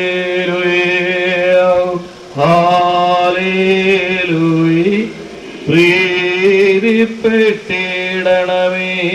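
Men chanting a slow Syriac-rite funeral hymn in long held notes that step up and down. There are short pauses between phrases about two seconds and about five seconds in.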